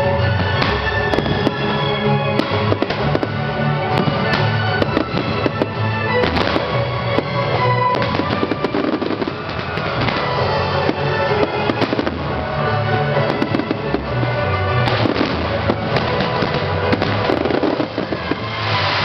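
Fireworks display: a rapid, continuous run of bangs and pops from shells and comets bursting overhead, with music playing underneath.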